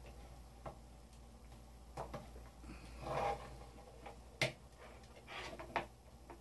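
Faint scattered clicks and knocks from handling a compact circular cutting saw and its power cord, the sharpest click about four and a half seconds in.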